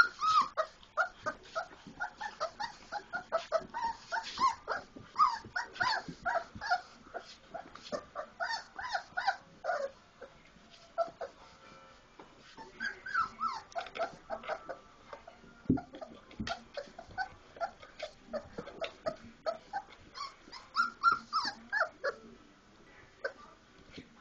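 Four-week-old Labrador puppies vocalising as they play, many short high-pitched squeaks and whines in quick succession. There is a brief lull about ten seconds in and another near the end.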